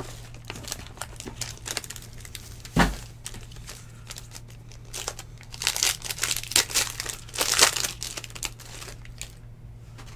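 Foil trading-card pack crinkling and tearing as it is opened by hand, densest between about five and eight seconds. A single thump about three seconds in is the loudest sound.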